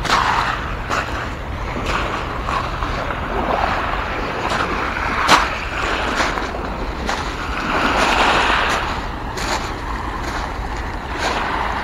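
Small lake waves lapping and washing over a pebble shore, swelling every few seconds, with a few sharp crunches of footsteps on the stones.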